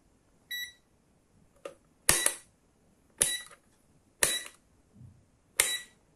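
Kaiweets HT118A digital multimeter giving a short beep as it switches on, then its rotary selector dial clicked through several positions: four sharp detent clicks about a second apart, each with a short beep from the meter.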